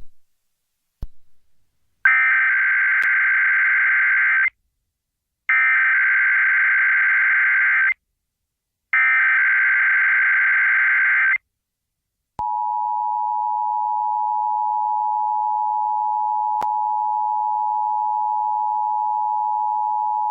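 Emergency Alert System SAME header: three identical bursts of warbling digital data tones, each about two and a half seconds long with a second's gap between them. About twelve seconds in comes the steady dual-tone EAS attention signal, which opens the alert, here a Required Monthly Test.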